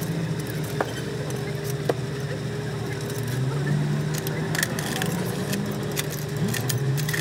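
Light metallic clicks and taps of parts and hand tools being handled on a truck diesel engine's cylinder head, over a steady low mechanical hum.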